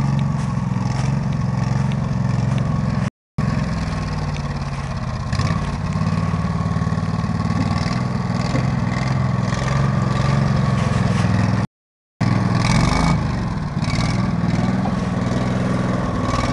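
Coot ATV's engine running under load as it is driven off-road, its pitch rising and falling with the throttle. The sound breaks off briefly twice.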